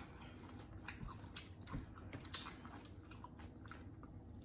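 Close-miked eating sounds: soft chewing and wet mouth noises, with scattered small clicks and one sharper click about two and a half seconds in.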